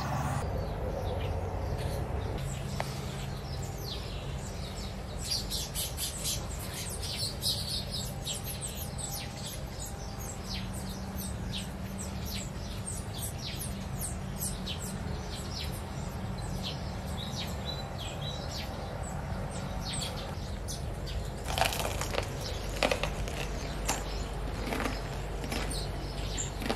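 Birds chirping in the garden, many short high calls, over a low steady hum. About twenty seconds in come a few sharp crunches as a crispy fried chicken tender is bitten into.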